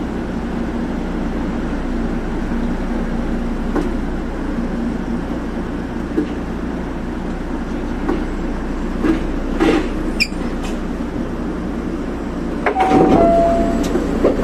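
Osaka Monorail train heard from inside the front cab as it moves slowly along the guideway past the station platform. The running noise is a steady low hum with a few clicks and a brief high squeal about ten seconds in; short steady motor tones come in near the end.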